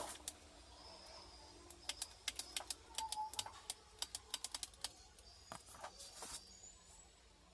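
Irregular light clicks and taps of tools and small parts being handled during a hand repair of a breaker, with a brief scrape near the end.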